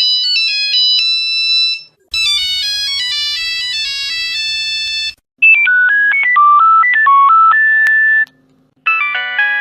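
Nokia mobile phone ringtones played one after another in short excerpts, each cut off by a brief silence. One melody ends about two seconds in, and three more follow, the third a plainer beeping tune.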